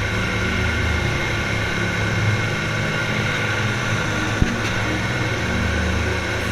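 Boat engine running steadily, with a single sharp click about four and a half seconds in.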